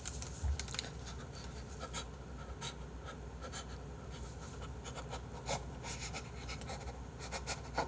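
Quiet eating sounds: a scatter of small clicks and rustles from chewing and handling a piece of gimbap, with the hands cupped over the mouth.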